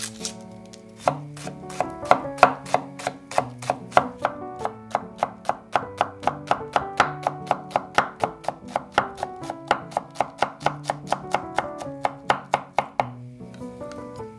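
Chef's knife chopping red onion on a wooden cutting board: a fast, even run of blade strikes, about four a second, starting about a second in and stopping near the end.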